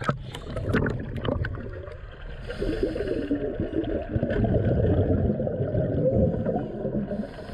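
Splashing as the camera crosses the sea surface, then muffled underwater bubbling and gurgling from scuba divers' exhaled air.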